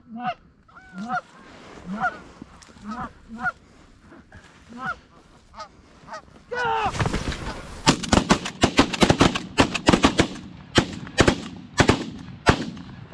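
Geese honking again and again at a steady pace, then a louder burst of calling, followed by a rapid volley of many shotgun shots from several hunters that lasts about five seconds as they shoot into the incoming flock.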